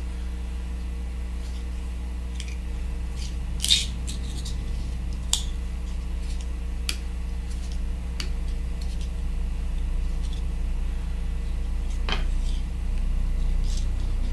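Small scattered clicks and ticks of fly-tying materials and tools being handled at the vise as floss is wrapped onto a hook, the loudest a little under four seconds in, over a steady low hum.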